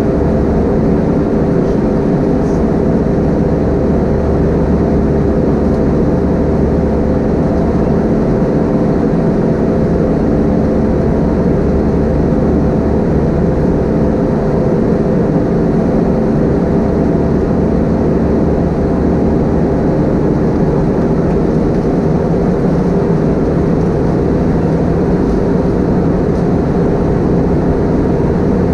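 Steady cabin drone of an Airbus A320-232 in flight, heard from inside the cabin: the IAE V2500 turbofan engines and airflow making a loud, even rumble with several steady hum tones that hold level throughout.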